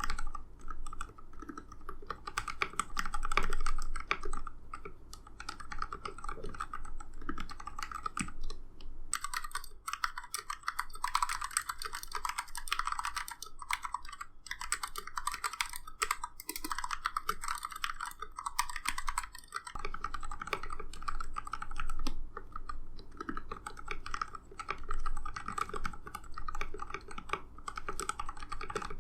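Continuous typing on a KPRepublic YC66 mechanical keyboard with linear Gateron Milky Black switches lubed with Krytox 205g0 and stabilizers lubed with dielectric grease: a steady stream of keystroke clacks. For about ten seconds in the middle, the keystrokes sound brighter and thinner.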